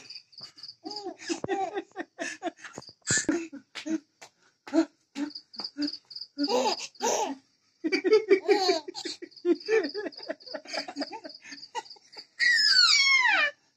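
A baby laughing in short repeated giggles, with crickets chirping steadily in the background. Near the end there is a loud squeal that falls steeply in pitch.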